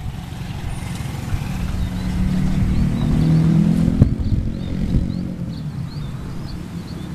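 Kubota RD85 single-cylinder diesel engine of a two-wheel hand tractor running, its pitch rising about two seconds in and settling back after a sharp knock about four seconds in.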